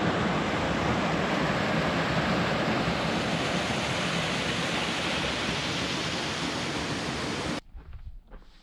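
Small creek waterfall pouring through a narrow rock chute, a steady rushing of falling water that cuts off suddenly near the end.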